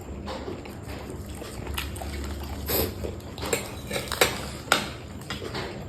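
Close-up eating sounds: chewing with wet mouth noises and several sharp crunches, the loudest a little past the middle.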